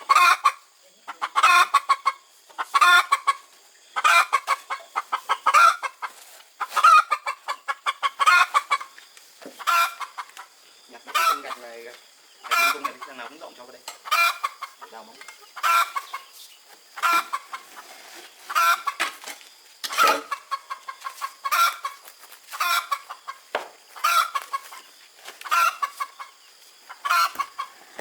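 Chickens clucking in a steady run of short bursts, about one a second.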